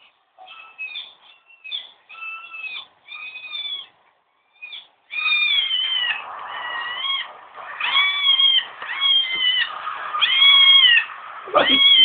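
Jack Russell terrier whining in a run of high, kitten-like mewing cries, each rising and then falling in pitch. The cries are short and broken at first, then louder and steadier at about one a second from about five seconds in.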